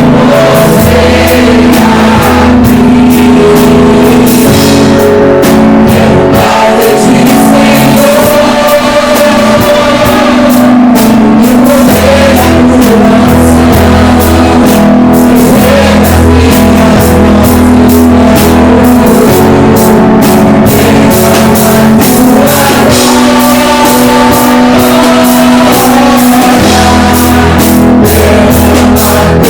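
Live worship band playing loud, with electric guitar, bass and drum kit and some singing.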